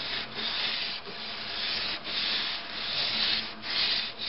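An oil applicator pad rubbing back and forth along the chrome carriage slide rail of an HP DesignJet 1050c plotter, in a run of about six hissing strokes, cleaning and lubricating the rail.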